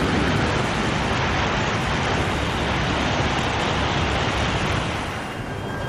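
E6 and E5 series Shinkansen coupled set passing through at high speed: a loud, steady rushing noise that drops away near the end as the last car goes by.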